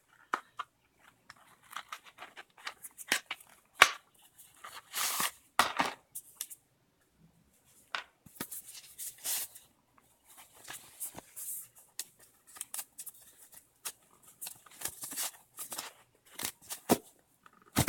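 Unboxing sounds: packaging rustled and torn open in short hissy bursts, the strongest about five and nine seconds in, among scattered light clicks and knocks of small plastic parts being handled.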